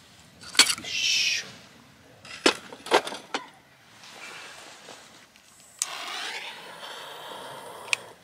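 A gas canister being swapped on a small camping gas stove: a click and a short hiss of escaping gas about half a second in, then several metal clicks as it is handled and seated. Just before six seconds a sharp click as the burner is lit, then the steady hiss of the gas burner running, with one more click near the end.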